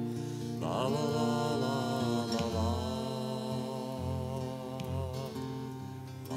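Live acoustic song: long sung notes with vibrato over an acoustic guitar.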